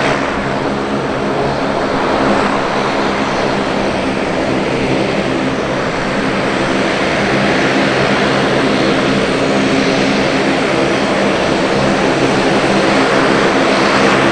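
Twin turboprop engines (General Electric CT7) of a US Coast Guard HC-144 Ocean Sentry (CASA CN-235) running at taxi power: a loud, steady propeller drone over a turbine hiss.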